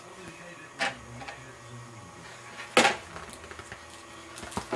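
Toys knocking against a plastic high-chair tray: two sharp knocks about two seconds apart, with a fainter tap between them.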